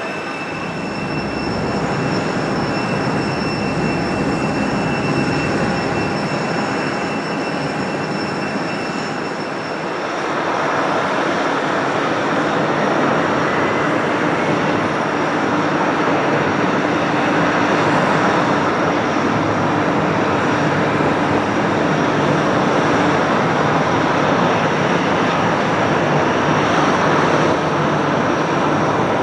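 Boeing 757-200 freighter's jet engines running at low thrust as it taxis: a steady whine with several high tones over engine noise. About ten seconds in the sound changes to a louder, fuller jet-engine noise as the aircraft lines up on the runway.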